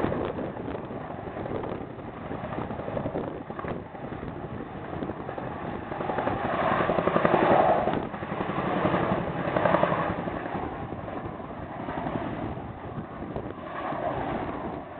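CH-47 Chinook tandem-rotor helicopter flying with an underslung load: the rapid, steady beat of its rotor blades over the whine of its turbines, swelling louder about seven seconds in and again around ten seconds.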